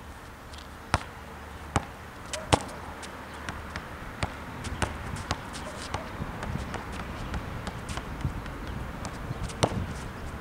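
Basketball bouncing on an asphalt court as it is dribbled: three sharp bounces under a second apart early on, the third the loudest, and another strong one near the end. Lighter taps and clicks come in between over a low wind rumble.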